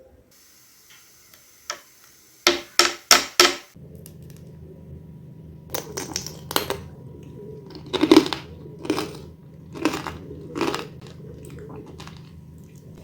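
Hard candy coating cracking and crunching: four sharp quick cracks about two and a half seconds in, then a series of crunches roughly a second apart over a steady low hum.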